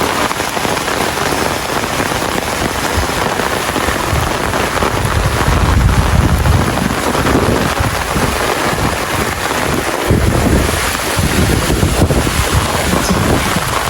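Steady rain falling, an even hiss of drops, with two low rumbling swells: one about a third of the way in and another about two-thirds through.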